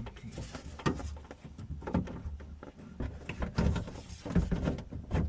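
Irregular clicks, knocks and rattles of a car door lock unit and its plastic and metal parts being handled and pushed into place inside the door.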